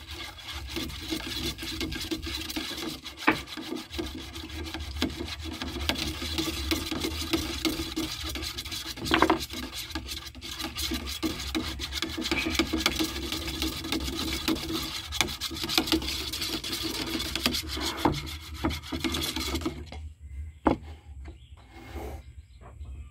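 A stirring stick scraping round the inside of a metal can of flat wall enamel paint as the paint is mixed: a quick, steady rasping that stops abruptly about twenty seconds in, followed by a few light knocks.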